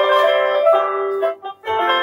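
Piano accompaniment for a ballet class exercise: chords and a melody played at a steady pace, with a short break about one and a half seconds in.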